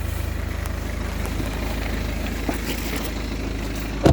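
BMW 318d's 2.0-litre turbo diesel engine idling, a steady low hum with a fine, even pulse. A sharp knock comes right at the end.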